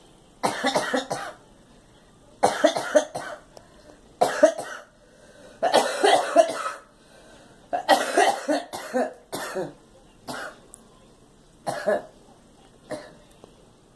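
A girl in a coughing fit: repeated bouts of several quick coughs, with pauses between bouts, the later coughs single, shorter and fainter, tailing off near the end.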